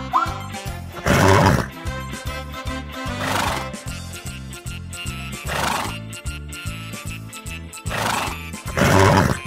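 Zebra calling five times, about two seconds apart, the first and last calls loudest, over background music with a steady beat.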